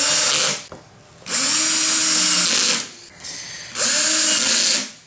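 Cordless drill/driver driving screws into a plywood deck to fasten motor controllers down, in three short runs with quiet gaps between them. Its motor whine rises as each run starts.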